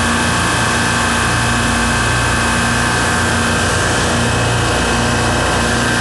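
Supermarket refrigeration rack compressors running: a loud, steady machinery din with a constant high tone and a low hum that pulses about once a second.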